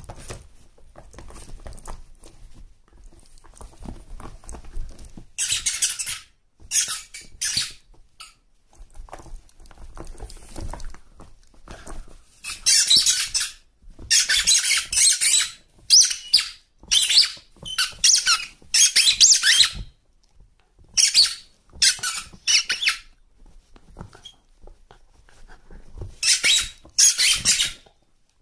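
A squeaky dog toy squeaking over and over as a fox terrier chews it: from about five seconds in, runs of short, loud, high squeals, some coming in quick succession, with pauses between the runs. Quieter rustling and shuffling fills the first few seconds and the gaps.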